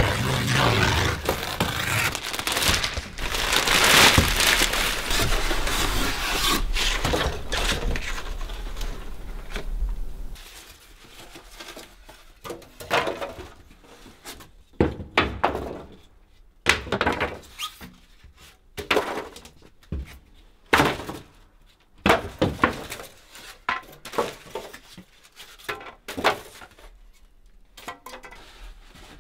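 A new chest freezer being unpacked: a loud, continuous rustling and scraping of packing material for about the first ten seconds, then a series of separate thunks and knocks as styrofoam packing pieces and wooden slats are pulled off and dropped onto a wooden deck.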